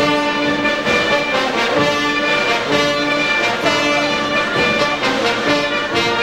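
Brass band playing processional music in long, held notes, at a steady loudness.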